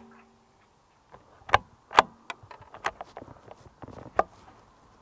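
The bolt of a CZ 457 .22 rimfire rifle worked by hand after a shot: a run of sharp metallic clicks and clacks over about three seconds as the bolt is lifted, drawn back to eject the spent case, pushed forward and closed, the loudest clacks about a second and a half in, at two seconds and just past four seconds.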